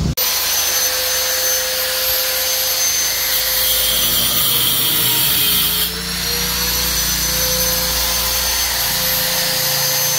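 A small motor running with a steady whine over a loud hiss. Its pitch sags briefly and recovers about five to six seconds in, and an extra high hiss joins for a couple of seconds in the middle.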